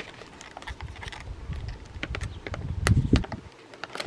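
Foil-lined snack pouch crinkling and clicking as it is pulled open by hand, with a low rumble from handling through the middle.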